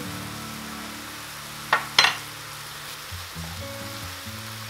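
Minced beef sizzling in a frying pan as it is stirred, with two sharp knocks about two seconds in. Soft background music plays underneath.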